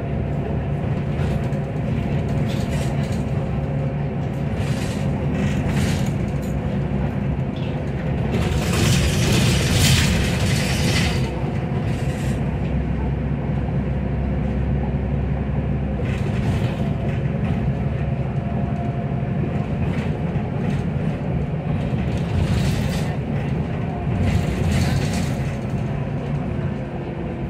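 Inside a Solaris Urbino 12 city bus under way: steady engine and drivetrain running with road rumble and a slowly shifting whine. A burst of hiss comes about nine seconds in and lasts about two seconds.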